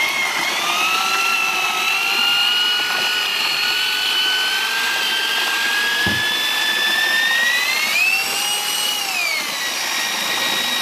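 Electric drill with a paddle mixer whisking render powder into water in a plastic bucket. The motor whine climbs as it spins up at the start, runs steadily with a slow rise, goes up in speed about eight seconds in and settles back, with a single knock around six seconds in.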